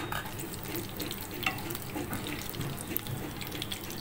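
Cumin seeds sizzling and spluttering in hot cooking oil in a frying pan: a steady fizz with many small scattered pops, the sign that the oil is hot enough to temper the seeds.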